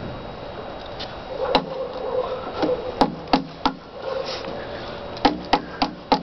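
About ten sharp knocks on wood, a few of them single and the rest in quick runs of three or four.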